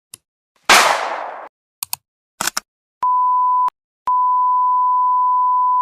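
A string of separate editing sound effects: a tick, a short burst of noise that fades over about a second, two pairs of quick clicks, then a steady high censor-style bleep tone, once briefly and then held for about two seconds.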